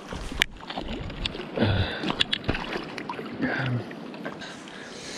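A small brown trout splashing at the surface as it is drawn into the shallows and landed, over the running river, with scattered knocks and scrapes of handling at the edge.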